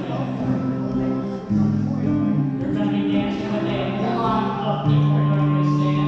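Live acoustic guitar strumming chords under a fiddle playing a contra dance tune, with a held fiddle note from about four seconds in.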